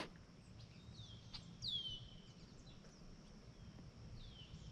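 A bird calling a few times in short whistled notes that slide down in pitch, the clearest about two seconds in, over a faint steady high-pitched tone.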